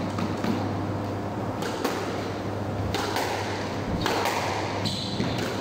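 Squash rally: sharp smacks of the ball off rackets and the court walls, about half a dozen in a few seconds, with short squeaks of court shoes on the wooden floor near the end.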